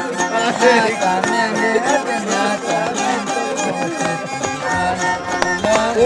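Traditional folk music: a fiddle playing a melody over a plucked string accompaniment.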